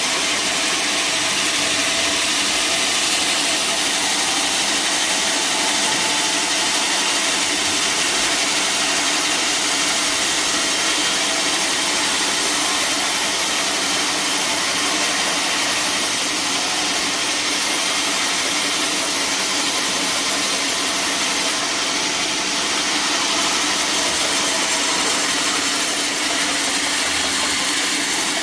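A powered saw running steadily as it cuts through wood, loud and unbroken.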